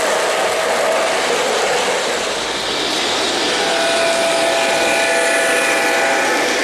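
O-gauge three-rail model trains running past close by: a steady rush of wheels rolling on metal track. From about three and a half seconds in, several steady tones sound together over it.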